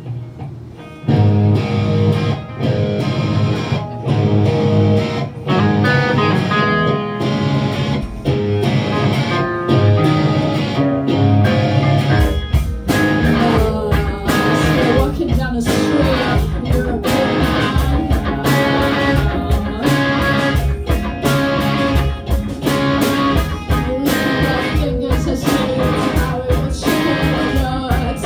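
A live band with electric guitars, bass guitar and drums playing. The music starts about a second in and becomes fuller and heavier in the low end about twelve seconds in.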